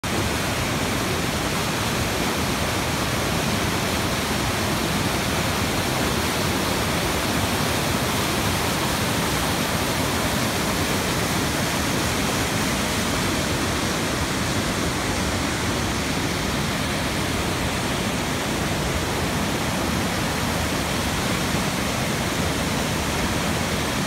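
Waterfall rushing: white water of a forest stream cascading down boulders at the Triberg Waterfalls, a steady, unbroken rush of water.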